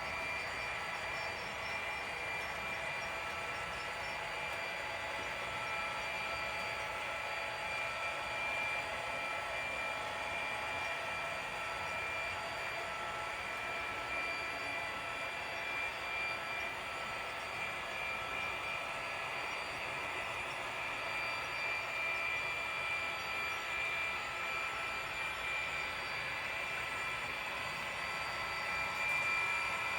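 HO scale model freight train running, led by several model diesel locomotives working together, with a steady whine and running noise that gets a little louder near the end.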